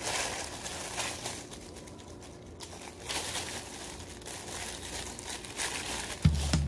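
Crinkling and crumpling of a parcel's mailing bag as it is handled and opened, in irregular bursts. Background music comes in near the end.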